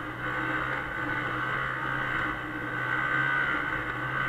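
1996 Arctic Cat Bearcat 340 snowmobile's two-stroke engine running at a steady speed while the sled is under way.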